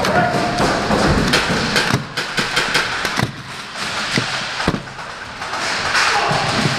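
Airsoft gunfire exchange: many sharp pops and cracks at an irregular pace.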